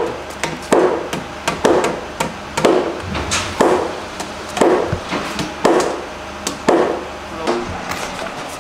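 Hammer blows on timber during wooden house framing, about eight strikes at a steady pace of roughly one a second, each with a short ring.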